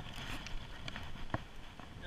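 Faint rustling handling noise with scattered soft clicks as ice-fishing gear (the transducer cable and spinning rod) is moved about, with one sharper click a little over a second in.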